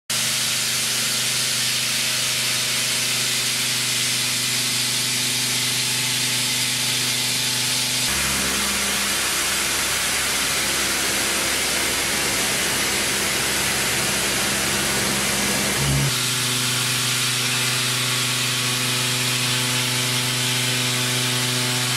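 Face mill cutting SM45C carbon steel on a Hwacheon D2-5AX 5-axis machining center: a steady hiss of the cut over a steady machine hum. The hum's pitch changes abruptly twice, about 8 and 16 seconds in, between cuts with different cutters and feed rates.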